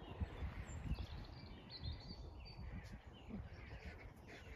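Faint birdsong: a few scattered chirps and calls over a low, uneven rumble of outdoor background noise.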